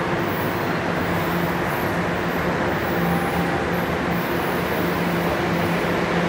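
Toronto subway train (Line 1, Toronto Rocket) standing at the platform after pulling in, giving a steady rushing running noise with a low steady hum.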